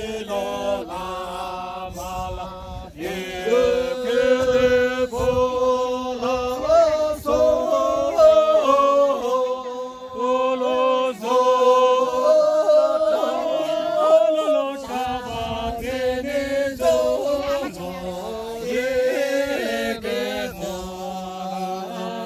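A group of voices singing a chant-like song together without instruments, in long held notes that step from pitch to pitch.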